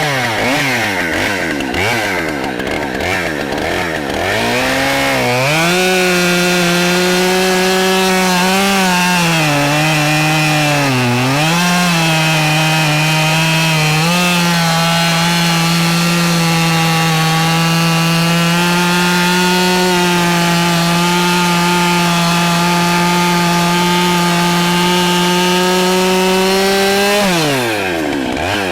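Husqvarna 572XP two-stroke chainsaw with a 28-inch bar bucking a big oak log. It revs up and down for the first few seconds, then runs at high, steady revs through a long cut, bogging briefly twice. Near the end the throttle comes off and the pitch falls away, then it revs up again.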